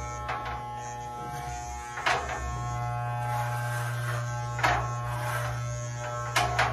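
Corded electric hair clipper buzzing steadily as it shears wet hair close to the scalp. The sound sharpens briefly three times.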